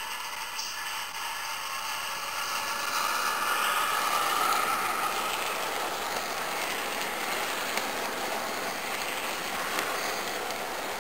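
OO gauge model train running along the track, wheels rolling on the rails, with the Hornby Class 60 locomotive's diesel engine sound played by its ESU LokSound decoder through a small speaker. It grows louder about three seconds in, then eases back to a steady level.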